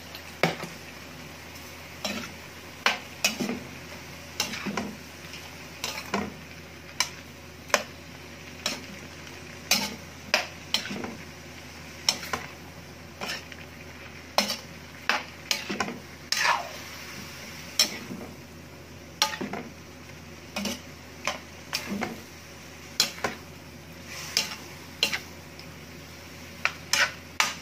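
Metal spatula scraping and clinking against an aluminium wok as chunks of squash, chayote and ground beef are stirred and turned, in irregular strokes about once or twice a second.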